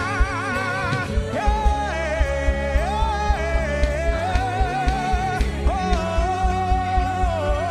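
Live gospel praise band playing: a sustained, wavering lead melody that slides between notes, over keyboard chords, bass and a steady drum beat.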